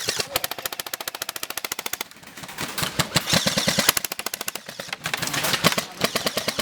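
Airsoft electric gun firing on full auto, a rapid, even stream of sharp clicks in long bursts, with short breaks about two seconds in and again past the middle.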